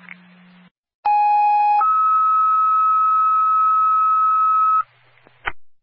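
Two-tone sequential paging tone over a fire dispatch radio channel: a lower tone for under a second, then a higher steady tone held about three seconds, alerting a unit ahead of a voice dispatch. A short radio click follows near the end.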